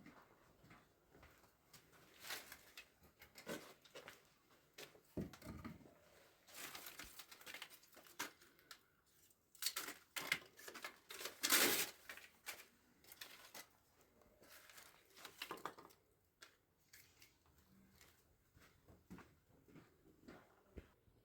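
Irregular rustling and crinkling with scattered light knocks and scrapes, as of things being handled, loudest a little past the middle.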